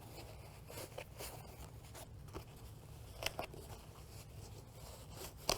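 Rack rail back plate being worked through the nylon MOLLE webbing loops on a ballistic shield: faint scattered scrapes and light clicks of handling, the sharpest just before the end.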